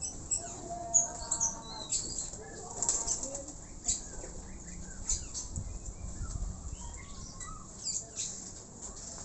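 Young racing pigeons' wings flapping and clapping in short bursts, many separate strokes, as the birds take off and hop over a training rope, with some chirping.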